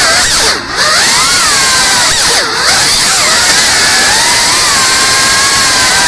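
FPV quadcopter's brushless motors whining, the pitch swinging up and down with the throttle. Twice, about half a second in and again about two and a half seconds in, the whine drops low and briefly quiets as the throttle is chopped, then it runs steadier.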